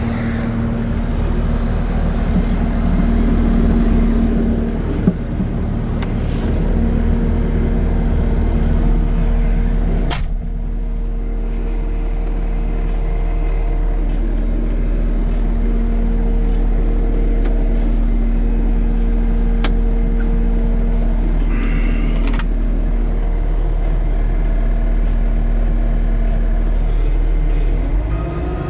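New Holland L228 skid steer's diesel engine running at a steady speed, with a constant hum. A few sharp clicks and knocks are heard over it.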